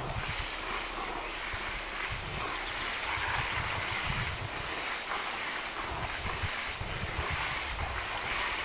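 Wind buffeting the microphone in irregular low gusts over a steady high hiss.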